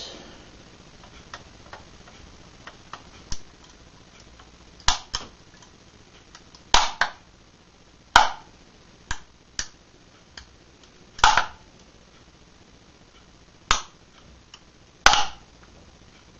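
Die-cast model Ford 12M giving way under a bare foot pressing on its roof: about a dozen sharp, irregular cracks and snaps, some in quick pairs.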